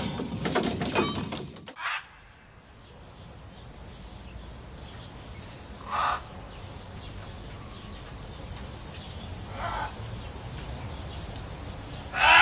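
A dense clinking clatter that stops about two seconds in, then a quiet outdoor background with three short bird calls, the last one the loudest.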